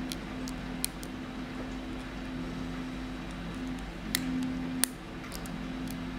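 Lock pick clicking against the pin tumblers of a VIRO padlock, a few short sharp clicks, the clearest about a second in and twice just after four seconds, over a steady low hum.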